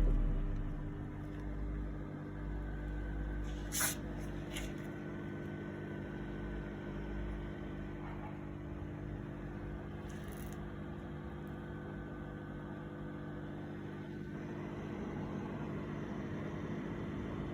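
Low steady mains hum, several fixed tones together, from the amplifier test setup once the music has stopped, with a single sharp click about four seconds in.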